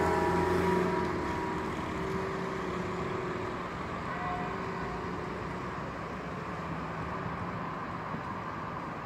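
Church tower bell dying away after its last stroke, its ringing tones fading out over the first few seconds, over a steady low background rumble.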